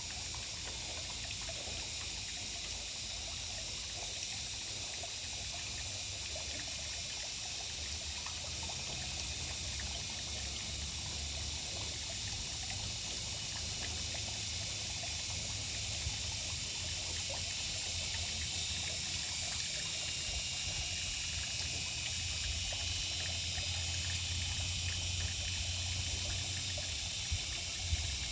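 Water trickling steadily, an even hiss with a low rumble underneath.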